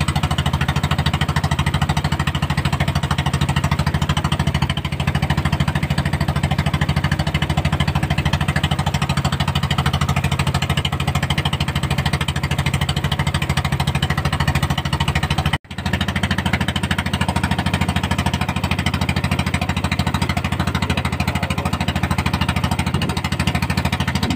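Small boat engine running steadily at close range, a rapid even thumping. It cuts out for an instant about fifteen seconds in, then carries on the same.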